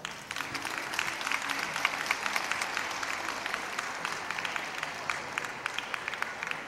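Audience applauding, with many sharp individual claps. It breaks out suddenly and carries on steadily.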